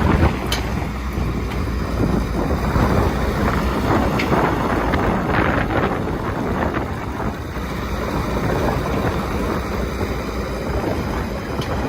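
Excavator working in limestone: its diesel engine runs steadily under crackling, scraping rock, with a few sharp knocks.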